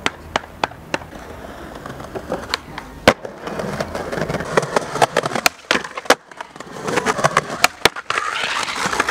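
Skateboard rolling on pavement, its wheels clicking at a regular pace. A sharp crack of the board about three seconds in is from a pop or landing. Near the end the board scrapes steadily along a concrete ledge in a grind or slide.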